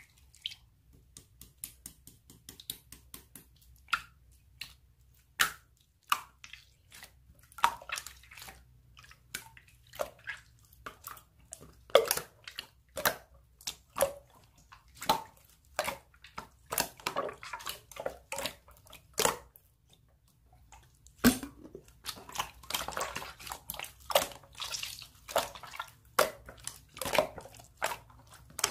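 Slime being squeezed and poked by hand, giving an irregular run of sharp wet clicks and pops, thickening into a denser crackle in the second half.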